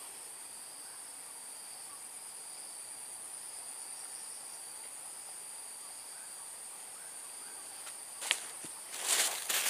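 Steady, high-pitched insect chorus of crickets, a continuous shrill buzz. Near the end come a sharp click and then a brief burst of clicks and rustling.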